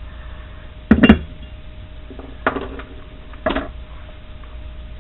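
Small engine piston tapped with a metal tool: a sharp double strike about a second in, then two lighter taps. It gives a solid sound rather than a dull thunk, the sign of a part with no cracks.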